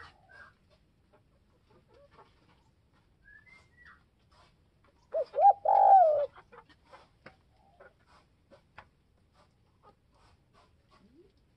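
Spotted dove cooing once, about halfway through: two short notes, then a longer falling note. It is a caged call-dove giving the song used to lure wild doves.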